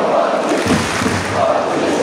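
Football supporters chanting loudly and steadily in unison from a packed stadium stand, a sung mass chant with no break.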